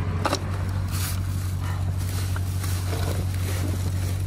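Steady low machine hum, with one sharp click just after the start.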